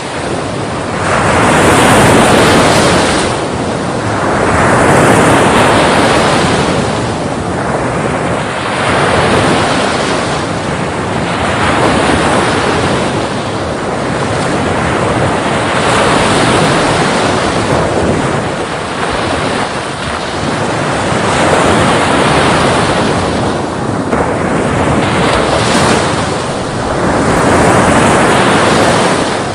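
Sea waves breaking and washing ashore, the surf swelling and falling back about every two to three seconds.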